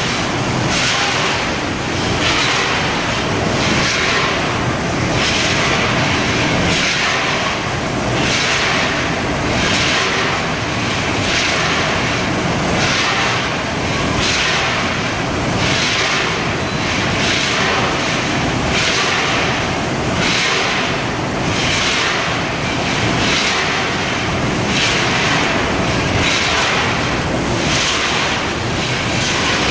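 Vertical form-fill-seal bagging machine running in production, with a hissing noise that swells and fades in a steady cycle of about once a second as it makes and seals each bag.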